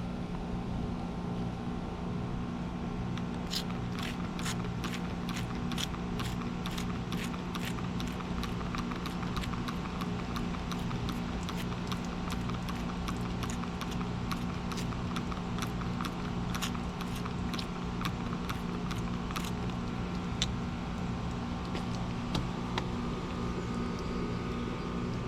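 Steady mechanical hum of running air-conditioning equipment, with many small irregular clicks and ticks of hand work from a few seconds in.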